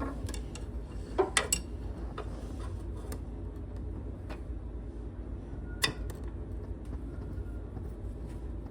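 Irregular small metallic clicks and taps of a screwdriver working a hose clamp on a hydraulic hose, a few sharper clicks about a second in and near six seconds, over a low steady hum.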